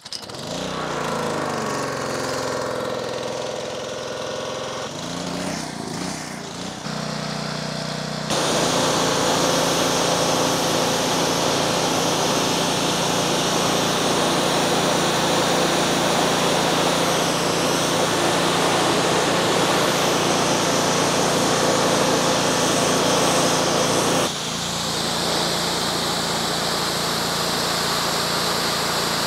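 Honda GCV170 single-cylinder engine of a DeWalt 3100 PSI gas pressure washer starting and running. About eight seconds in the high-pressure spray comes on and it turns to a loud, steady rushing hiss of water with the engine running under load beneath it.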